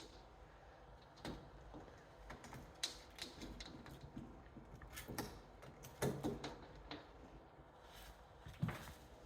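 Faint, scattered light clicks and taps, a few separate ones spread out with quiet room tone between.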